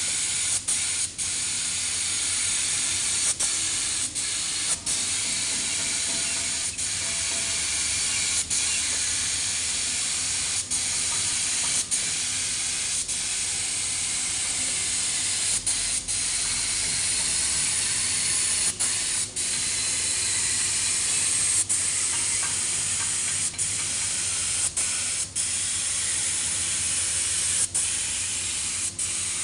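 Gravity-feed paint spray gun hissing steadily on compressed air, with short breaks now and then.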